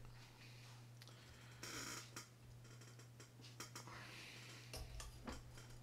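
Near silence with a steady low hum, broken by faint handling noises from the plastic reel frame and screwdriver: a brief rustle about two seconds in and a few light clicks.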